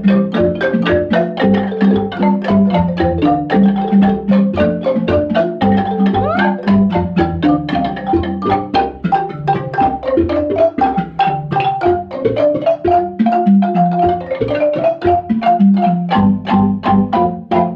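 Zimbabwean-style marimba ensemble: several wooden-keyed marimbas with tube resonators, including a large bass marimba, playing interlocking repeated patterns at a steady quick pulse, with low bass notes under higher melodic lines.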